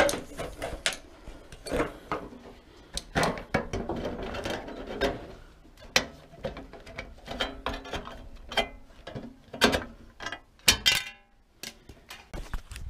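Hand metal snips cutting through a sheet-metal roof gutter: a string of irregular sharp snips and clicks as the blades close on the metal, with a quicker run of cuts near the end.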